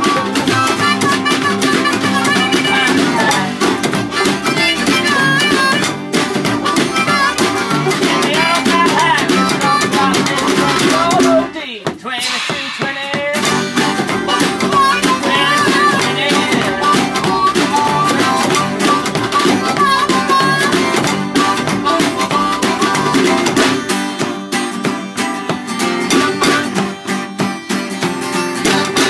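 Acoustic hillbilly string band playing: upright double bass, banjo and harmonica. The music briefly drops away about twelve seconds in, then carries on.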